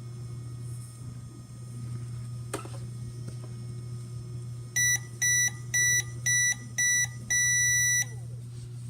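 Just Like Home toy microwave ending its cooking cycle: five short high electronic beeps and then one longer beep, over the low steady hum of its turntable motor. A single click sounds a few seconds before the beeps.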